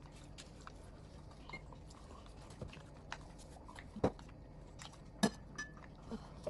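Children chewing food, with chopsticks clicking against bowls and a glass serving dish; two sharper clinks stand out about four seconds in and a second later.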